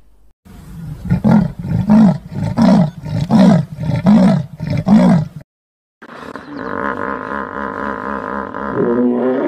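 An animal roaring: a run of about six deep grunts, a little under a second apart, then a short break. A different, steadier harsh call follows.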